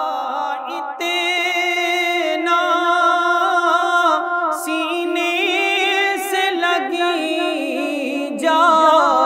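Unaccompanied naat singing: a male voice draws out long, wavering melismatic notes over a steady low vocal hum.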